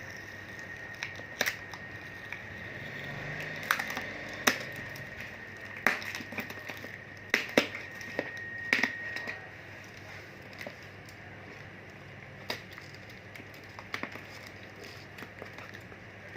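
Handling noises: scattered sharp clicks and knocks, with some crinkling, as a travel iron and its packaging are handled. A faint steady high whine runs underneath and stops about nine seconds in.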